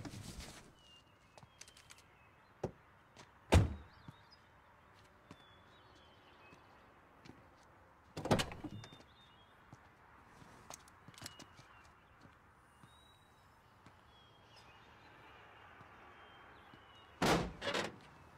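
Faint birds chirping over a quiet field, broken by a few sharp metallic thunks of car bodywork. Near the end comes a quick run of knocks and clanks as the buckled door of an overturned car is forced from inside.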